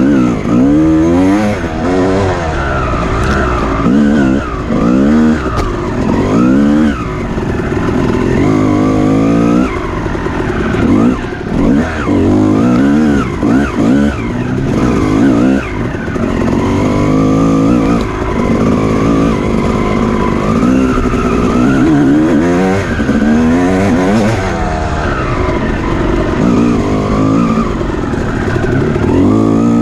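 Off-road dirt bike engine racing on a hare scramble course, its pitch climbing and dropping again and again as the throttle is opened and closed.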